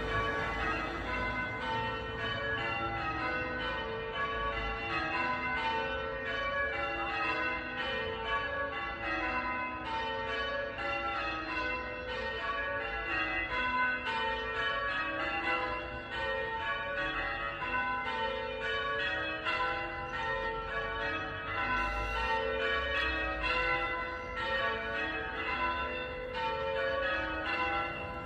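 The front five (lightest) of a ring of eight church bells, cast by Taylor's of Loughborough in 1920, rung one after another in an even, continuous sequence, each bell's note ringing on into the next strokes.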